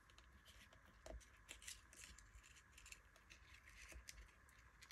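Near silence, with a few faint, scattered clicks and rustles from hands handling a paper card while tying nylon thread around it.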